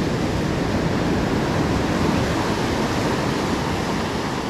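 Ocean surf breaking and washing up a sandy beach in a steady rush, with wind on the microphone.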